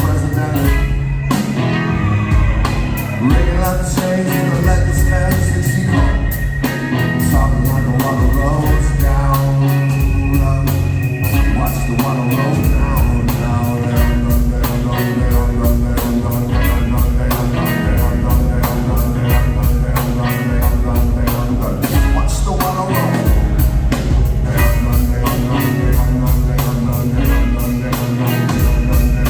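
Live rock band playing, with drums keeping a steady beat over a heavy bass line.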